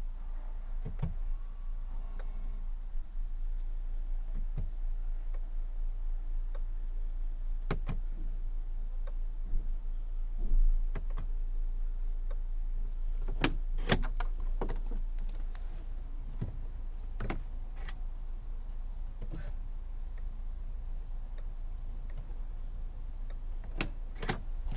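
Scattered clicks and light knocks over a steady low hum, with no cranking: the BMW E90 330d will not turn over when a start is tried. The no-crank fault was cured by replacing the starter motor.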